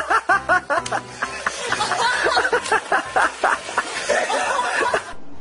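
A person laughing hard in quick, repeated peals. It cuts off abruptly near the end, giving way to background music.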